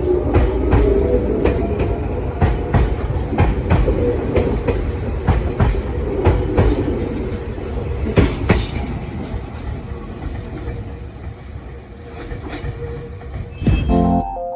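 Electric commuter train running on the track, wheels clacking over rail joints, with a motor whine in the first couple of seconds; it grows fainter in the second half. Background piano music takes over near the end.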